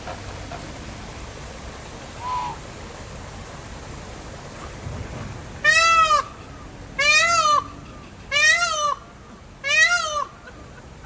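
A large bird giving four loud calls about a second and a half apart, starting about halfway through. Each call rises and falls in pitch and sounds like a cat. A fainter single call comes a couple of seconds in.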